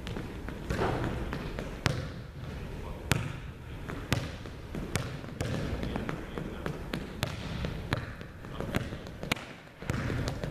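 Irregular sharp knocks and taps on a hardwood gym floor, about one or two a second, echoing in the large hall.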